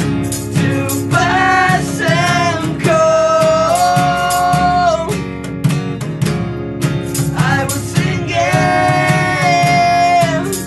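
Live acoustic indie-rock band: strummed acoustic guitar and hollow-body electric guitar over a steady beat tapped on a drum with sticks. A male voice sings two long phrases of held notes, the first starting about a second in and the second about three-quarters of the way through.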